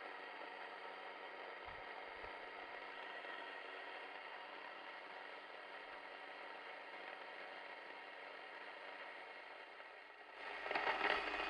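Sana electric stone grain mill running steadily, its millstones grinding buckwheat into flour: a steady whirring, grating drone. It gets louder about ten seconds in.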